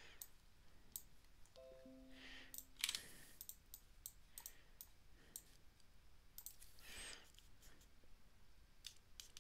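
Faint, scattered computer mouse clicks, with a brief tone that steps down in pitch about two seconds in.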